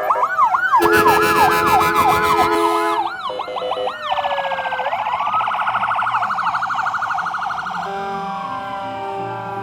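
Several electronic sirens sounding at once, overlapping and changing patterns every few seconds: fast yelping sweeps, a slow rising and falling wail, and a rapid warble.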